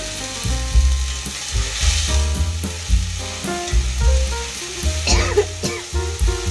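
Spice paste sizzling in oil with a little water in a black wok, stirred and scraped with a long-handled metal spatula, over background music with changing bass notes. A short rising sound comes about five seconds in.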